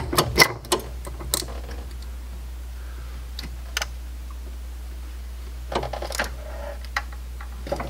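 Scattered small clicks and light knocks of brackets and clips being worked loose around a brake master cylinder and its reservoir. They come in a cluster in the first second or so and another around six seconds, over a steady low hum.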